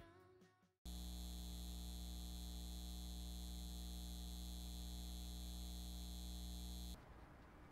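Low, steady electrical mains hum, a stack of even tones, that starts abruptly about a second in and cuts off suddenly near the end.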